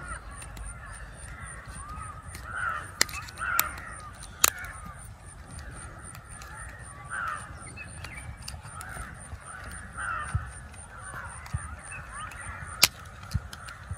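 Birds calling over and over in the background, with a few sharp plastic clicks from fingers prying at the back cover of a cheap smartwatch; the loudest clicks come about four seconds in and near the end.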